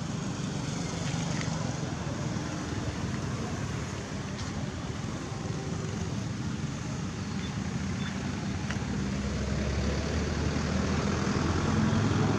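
Low steady engine hum of a motor vehicle, growing louder near the end.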